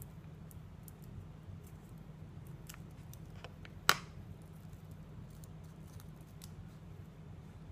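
Small metal craft scissors give a few faint snips and clicks on a paper strip. About four seconds in they are set down on a plastic cutting mat with one sharp clack. A low steady hum runs underneath.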